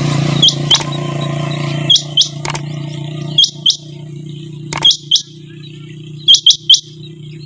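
Rain quail calling: sharp, high notes that slide downward, given in quick pairs and once in a triplet, about every one and a half seconds, over a steady low hum.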